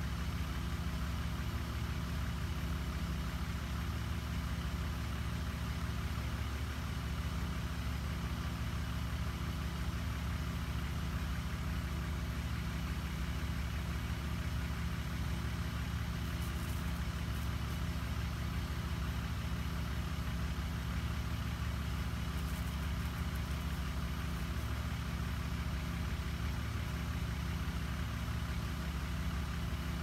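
Engine running steadily at idle with a constant low hum, the motor of the power sprayer pumping termite treatment through the hose.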